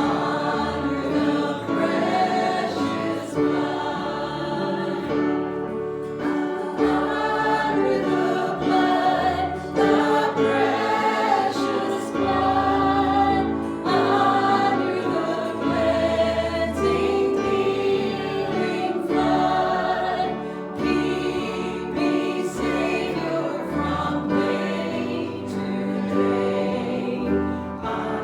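A choir or congregation singing a hymn with instrumental accompaniment and sustained bass notes.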